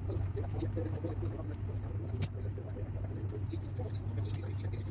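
Raw chicken wings being handled and snipped with kitchen scissors on a cutting board: faint wet handling noises and a few short clicks, the sharpest about two seconds in, over a steady low hum.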